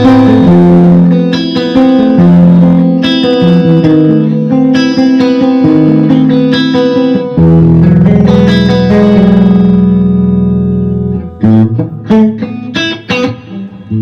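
Electric guitar played through an Orange Super Crush combo amp: a riff of ringing chords, a long held low chord in the middle, then short choppy stabs near the end.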